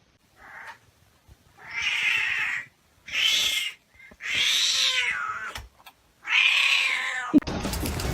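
Cat meowing: a short faint meow, then four long drawn-out meows of about a second each. Another clip's sound cuts in near the end.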